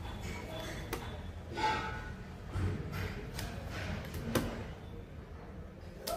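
Dial bore gauge knocking lightly against a steel connecting rod as its measuring head is set into the big-end bore: a few scattered metal clicks, the sharpest about four seconds in.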